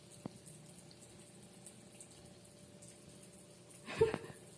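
Faint running or trickling water, with a small click just after the start and a sharp knock about four seconds in.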